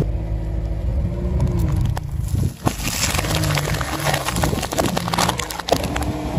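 Car engine running with a low hum as the tyre presses over soft marshmallows. Then, from about two and a half seconds in, a dense crackling and crunching of small Pringles crisp cans and the crisps inside breaking under a car tyre.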